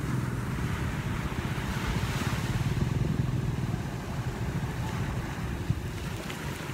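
Small waves washing in over the sand at the water's edge: a steady rush that swells about two to three seconds in, over a low steady rumble.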